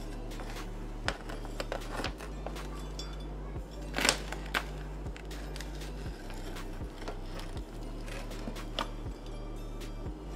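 Pizza-cutter wheel slicing through a pan of baked cookie bars, with scattered scrapes and crinkles from the aluminium foil pan; the loudest scrape comes about four seconds in. A steady low hum runs underneath.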